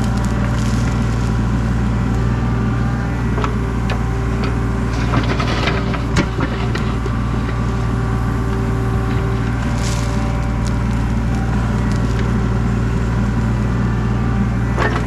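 Excavator's diesel engine running steadily under load, with scattered cracking and crunching as the bucket digs through the ground. The sound cuts off abruptly at the end.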